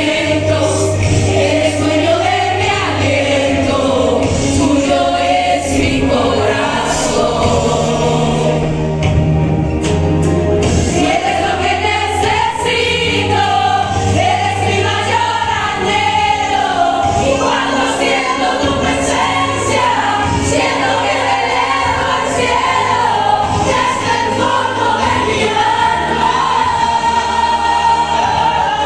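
Church worship band and group of singers performing a worship song: voices singing together over steady low instrumental accompaniment.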